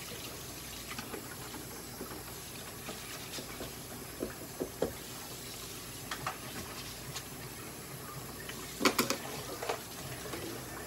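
Steady background rush with scattered light clicks and taps as a cat is combed with a metal comb on a stainless-steel exam table. About nine seconds in come two sharp metallic clicks, the loudest sounds, as the metal comb is set down on the steel table.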